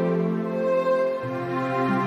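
Slow, sad background music of long held chords; the bass note steps down a little over a second in.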